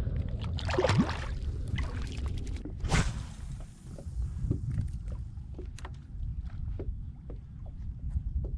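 Water lapping and ticking against the hull of a small boat, with a steady low wind rumble on the microphone. A single sharp knock comes about three seconds in.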